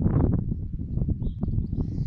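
Wind buffeting the microphone outdoors: a loud, uneven low rumble.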